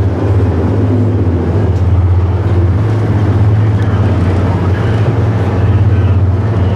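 Boat's engine running under way with a steady low drone, heard from inside the cabin.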